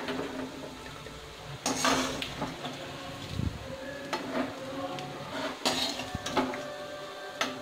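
A slotted metal spoon scraping and clinking against a metal kadai as fried peanuts are scooped out, several separate strokes spread through, over a faint sizzle of hot ghee.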